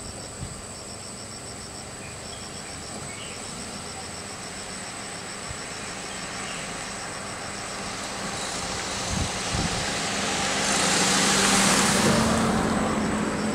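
A small white car approaching along a narrow road and driving past close by: its engine and tyre noise builds slowly over several seconds, is loudest near the end, then falls away. Insects chirp in a steady, even pulsing pattern underneath.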